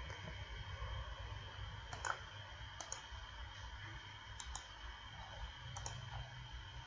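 Faint clicks from a computer keyboard and mouse: a few scattered clicks, several in quick pairs, as code is typed and run.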